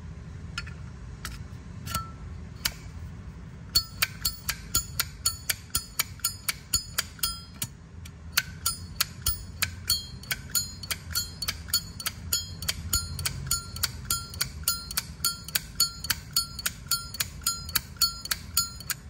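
Brass Zippo lighter's lid being flicked open and snapped shut over and over, each click with a short metallic ring. A few spaced clicks at first, then a quick steady run of about three clicks a second from about four seconds in.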